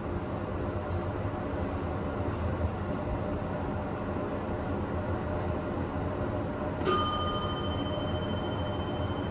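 Heights hydraulic elevator running with a steady mechanical hum as the car travels, then an arrival chime about seven seconds in: a single bright bell tone that rings on.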